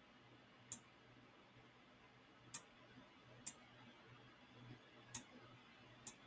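Computer mouse clicking: five faint, single clicks spaced a second or two apart.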